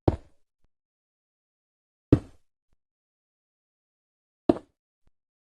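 Three sharp knocks, a little over two seconds apart, each dying away quickly, with dead silence between.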